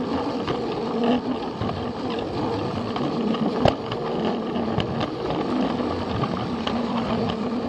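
Plarail battery-powered toy train running on plastic track: a steady whir from its small motor and gears with an even hum, and scattered sharp clicks, one louder about halfway through.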